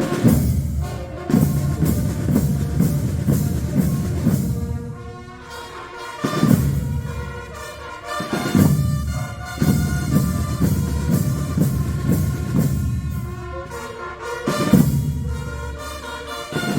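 A brass band playing a fanfare, with brass over drums and percussion. The phrases come in strong accents and ease off for a quieter passage about six to eight seconds in.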